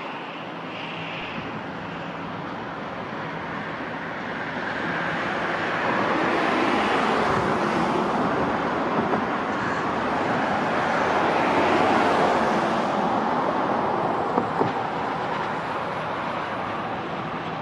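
A large vehicle passing: a loud rushing noise that swells over a few seconds, holds, then fades, with a couple of sharp clicks near the end.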